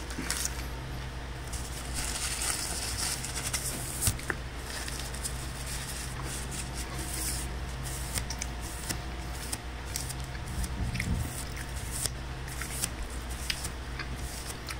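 Close-up chewing of a mouthful of crispy fried chicken sandwich: irregular crunching and wet, squishy mouth sounds with scattered clicks, over a steady low hum.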